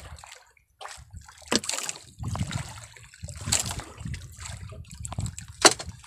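Water sloshing and splashing in uneven spurts against a small boat, with a sharp knock about five and a half seconds in.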